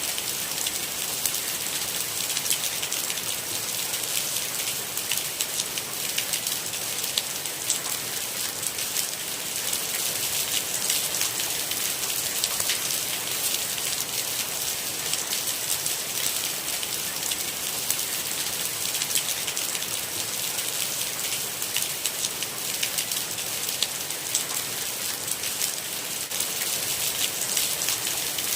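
Steady rain: an even hiss with a dense patter of individual drops, no thunder.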